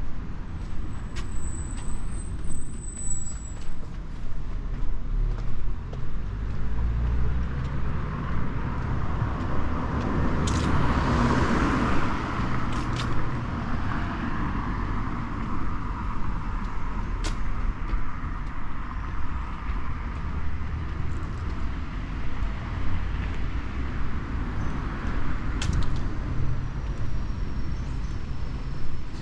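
City street traffic: a steady rumble of cars, with one vehicle passing close about a third of the way in.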